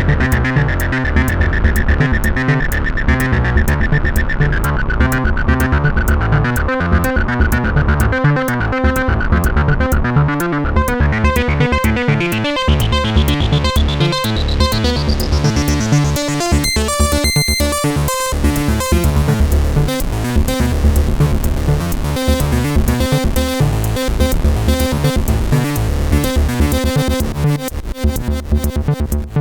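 Electronic jam: Roland TR-8 drum machine playing a steady beat under TD-3-MO and Minibrute 2S synth lines. A synth filter sweeps down over the first few seconds and opens back up over the next ten. The drums and bass drop out briefly about two-thirds of the way through, then come back.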